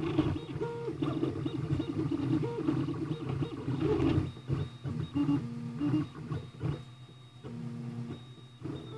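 FlashForge Creator 3D printer running a print: its stepper motors whine in short held tones that jump from pitch to pitch as the extruder head moves, over a steady low hum.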